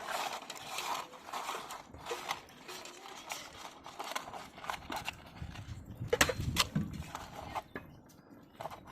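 Irregular handling clatter of clicks, scrapes and knocks, with the two loudest knocks about six seconds in.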